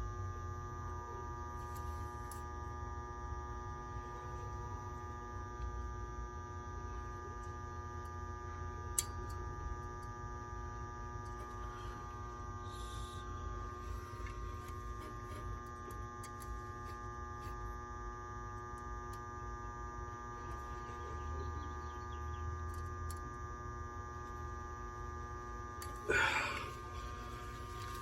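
A steady electrical hum made of several held tones over a low rumble, with a single sharp click about nine seconds in and a brief louder sound near the end.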